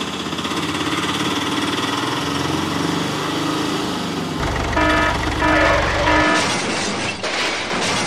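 Dubbed vehicle engine sound effect running with a rapid pulse, then three short horn honks about five seconds in, followed by a burst of noisy clatter like a crash.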